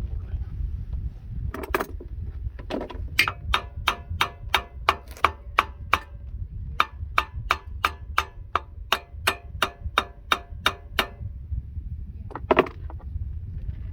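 Hammer blows on metal with a ringing note. A couple of single strikes come first, then two runs of about three to four strikes a second with a short break between them, and one last blow near the end. A steady low rumble runs underneath.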